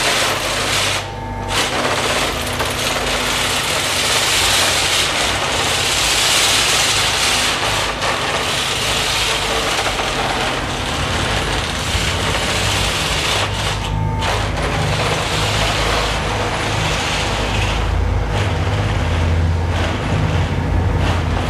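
Underground oil shale mining machinery running: a loud, steady mechanical noise made of a low drone under a dense hiss, the hiss dropping away briefly about a second in and again about fourteen seconds in.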